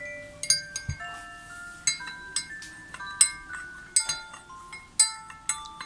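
Light background music, a tinkling glockenspiel-like mallet melody, with sharp bright clinks about once a second.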